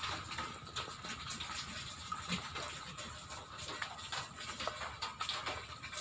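Rain falling on floodwater and a corrugated metal roof sheet: a steady hiss with scattered small drop patters.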